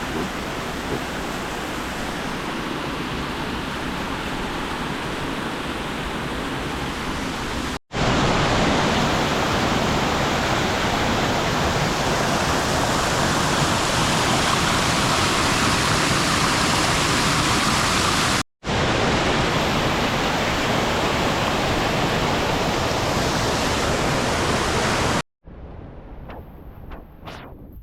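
Waterfall rushing: a steady, loud wash of falling water that breaks off abruptly three times. After the last break, near the end, it gives way to a much quieter stretch with faint ticks and steps.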